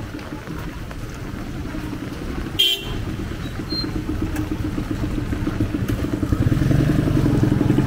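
Motorcycle-sidecar tricycle engines running close by, a low pulsing putter that grows louder over the last couple of seconds as one passes, with a short horn beep about two and a half seconds in.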